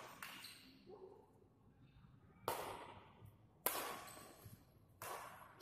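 Badminton rally: rackets striking the shuttlecock in sharp smacks, each trailing off in the hall's echo. A faint hit comes right at the start, then after a pause three louder hits about a second apart.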